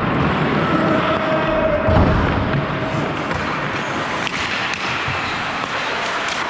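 Ice hockey play heard from a skating referee's helmet-mounted mic: a steady rush of skate and wind noise, with low thumps about two seconds in and a few sharp clicks of sticks and puck between four and five seconds.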